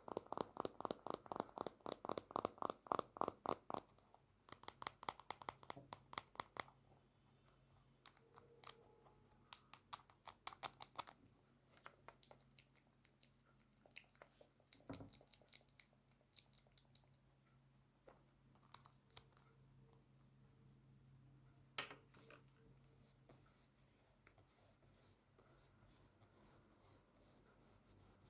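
ASMR makeup-tool sounds close to the microphone: rapid, repeated scratchy strokes, several a second. They thin out to scattered strokes in the middle and speed up again near the end.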